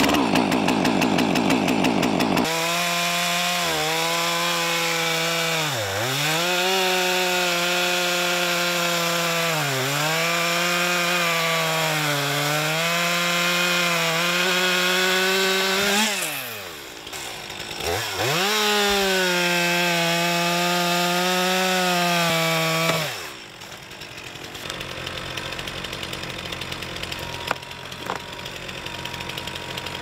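Stihl 362 two-stroke gas chainsaw: it catches and idles for about two seconds, then revs to full throttle and cuts through a dry, dead log, its pitch sagging several times as the chain bogs in the wood. About halfway through it briefly drops off the throttle and revs up again, and about three-quarters through it falls back off the throttle to a quieter run.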